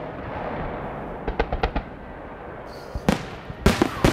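Aerial firework shells bursting: a quick run of sharp bangs about a second and a half in, then another bang and a louder cluster of bangs near the end.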